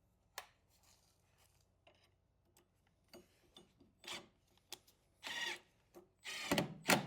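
Metal shipping brackets and crate wood being handled on a wooden pallet: scattered light clicks and knocks, a short scrape about five seconds in, then a louder scrape and knock near the end.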